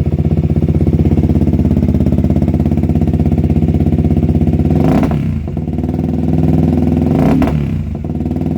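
Motorcycle engine with both dB killers removed from its exhaust and an airbox-delete intake, idling loud and lumpy, then blipped twice on the throttle, about five seconds in and again near the end, each rev rising and falling back to idle.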